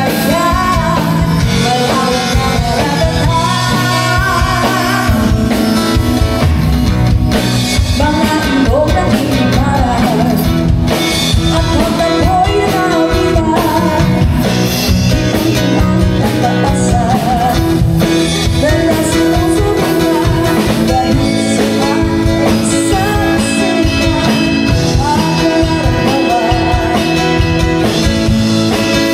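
Live band playing a song: a woman singing lead into a microphone over keyboard, drum kit and acoustic guitar.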